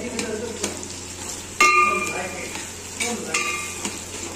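Sliced onions and green chillies sizzling in hot oil while a steel ladle stirs and scrapes them around a large aluminium pot. The ladle knocks the pot several times, with two ringing metallic clanks, the loudest about a second and a half in and another just past three seconds.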